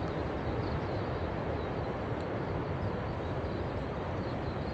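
Steady rush of small surf breaking on the beach, an even roar without distinct wave crashes.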